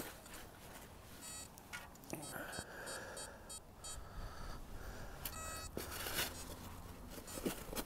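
XP Deus 2 metal detector giving short pitched beeps several times, signalling a target still in the dig hole, with a few scrapes and knocks of a sand scoop.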